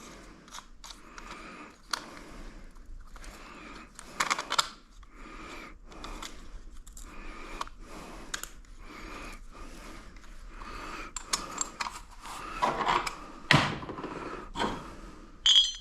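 Hand-tool work on exhaust fittings: an even run of short rasping strokes, about one and a half a second, then a few louder metallic clanks near the end.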